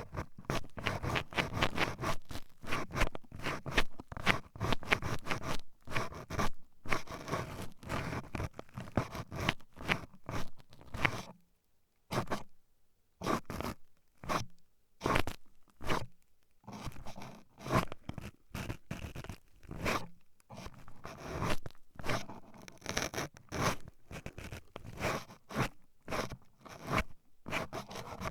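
Toothpicks poking and scratching rapidly at an ear microphone: dense crackly scratching and clicking. It thins to a few scattered taps with quiet gaps about halfway through, then picks up again.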